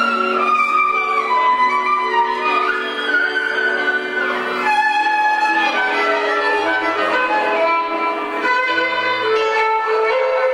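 Violin music: a melody of held notes with slides between them, over lower sustained notes.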